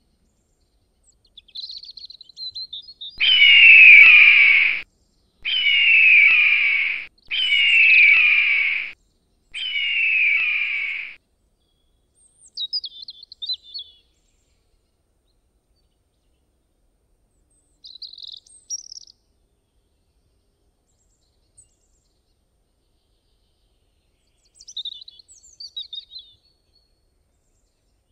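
Eagle calls: four long, harsh screams falling in pitch, each about a second and a half and close together, then a few short, high chittering calls spaced well apart.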